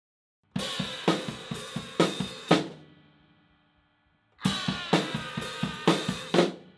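Drum kit played in two short phrases of about two seconds each, with a pause between: kick drum and hi-hat under snare hits on a Baltic birch plywood snare drum. Each phrase ends on a loud accent and stops abruptly.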